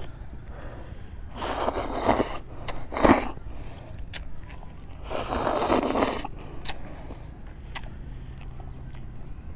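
Instant noodles being slurped from chopsticks, two noisy sucking slurps of about a second each, with a sharp click between them and a few lighter clicks.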